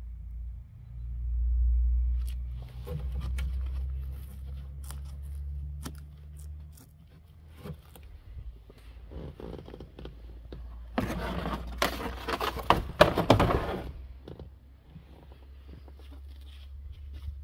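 Scraping, rustling and scattered knocks as things are handled inside a stripped car body. A low rumble runs through the first half, and a loud burst of scraping starts about eleven seconds in and lasts some three seconds.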